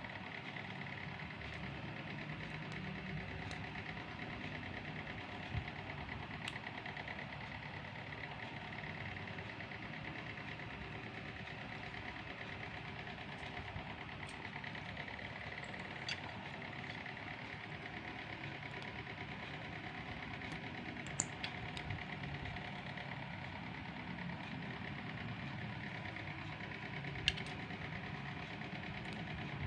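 A steady machine hum with several held tones, broken by a few sharp faint clicks scattered through it.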